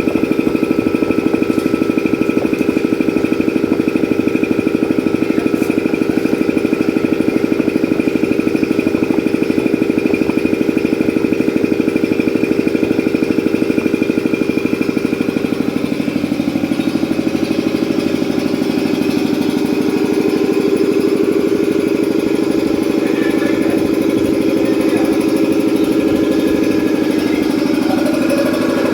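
5 HP IR-type piston air compressor, driven by a three-phase electric motor, running steadily with a fast, even pulsing from the pump strokes. Its note shifts slightly about halfway through.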